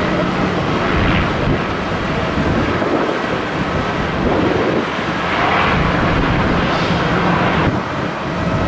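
Jet airliner engine noise, a steady loud rush with a low rumble that swells and eases slightly a few times.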